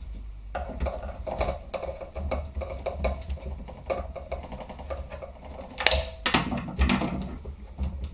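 Irregular clicks, rattles and knocks of an SRC G36 airsoft rifle's parts being handled and fitted back together, with a louder knock about six seconds in.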